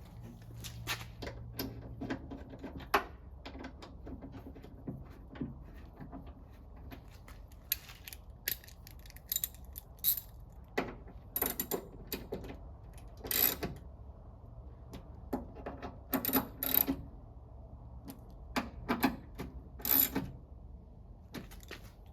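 Irregular metallic clicks and clinks of hand tools against a car door's steel panel and fittings as the new door lock actuator is bolted into place, some in quick clusters of several strikes.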